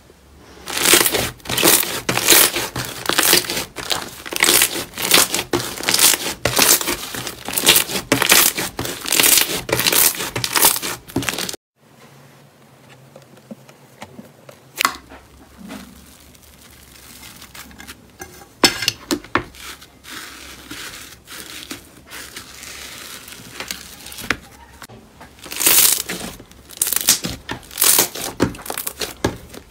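Hands squeezing and kneading thick slime, giving quick, dense runs of crackly pops. About halfway through the sound drops away to only scattered pops, then the dense crackling returns near the end.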